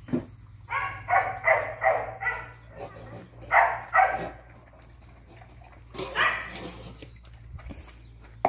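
Puppies barking in short, sharp barks: a quick run of about five barks a second in, two more a little later, and a few more near the six-second mark.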